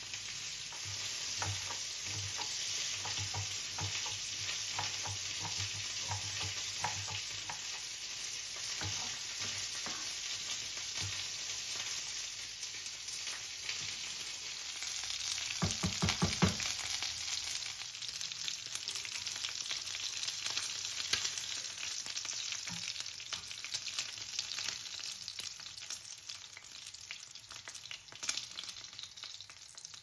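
Food sizzling steadily as it fries in a pan, with soft taps in the first third. About halfway through, a quick run of knocks as a wooden spoon stirs cooked rice in a pan.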